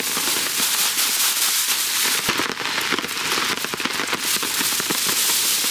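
Heavy rain falling steadily on a tarp and an umbrella, a dense crackle of drops.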